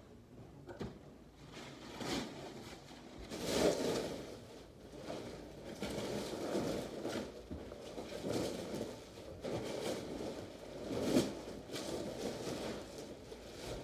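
Irregular rustling and scraping of plastic wrapping as a vacuum-packed memory foam mattress is handled, with louder swells about four seconds in and again near the end.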